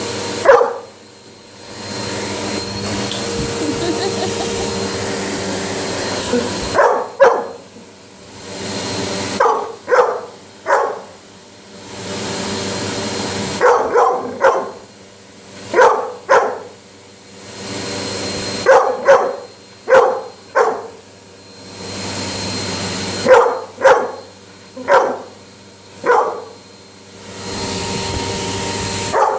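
Vacuum cleaner running in stretches of a few seconds, cutting out in between, while a dog barks at it in bouts of two to six sharp barks during each pause.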